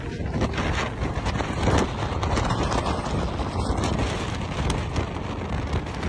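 Typhoon wind buffeting the phone's microphone, a loud, steady rumble with a stronger gust just under two seconds in, over storm surf.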